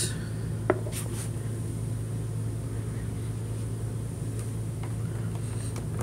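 Steady low mechanical hum, with a few faint clicks about a second in.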